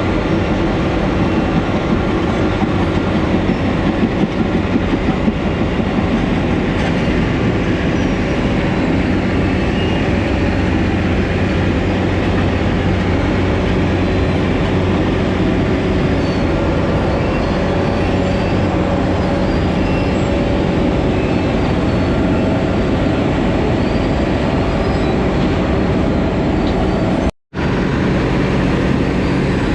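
Asphalt milling machine running steadily: a heavy diesel engine hum under a loud, dense grinding rumble. The sound cuts out for an instant near the end.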